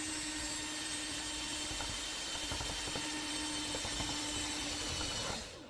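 Electric drill running at a steady speed, with a steady hum, as it drives a self-tapping screw into the garage door; it stops about five seconds in.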